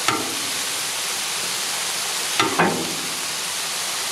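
Elk smash burger patties sizzling steadily on a hot Blackstone steel griddle top. There is a sharp click at the start and a short pitched sound about two and a half seconds in.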